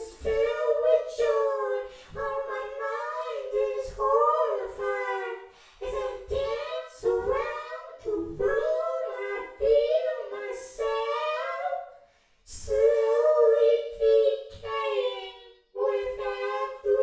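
A high voice singing unaccompanied, in short phrases of a second or two with brief breaks between them.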